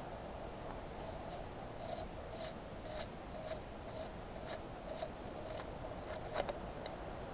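Piston of a scratch-built model steam engine worked back and forth by hand in its cylinder: a soft scraping about twice a second as the piston washers rub the bore, with a couple of sharper metal clicks near the end. The piston is being tried for fit after its washers were installed.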